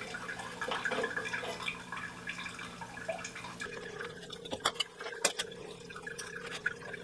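Water dripping and trickling from an electric water heater being drained, with several sharp clicks a little past the middle.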